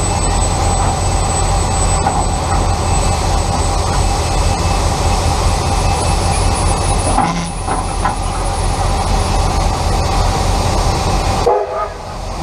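Steam-hauled train rolling slowly, a steady low rumble with a short dip about seven seconds in and a brief drop near the end.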